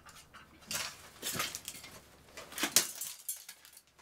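Metal skillet pan clanking and scraping as it is handled and set down among broken glass, with a few sharp clinks.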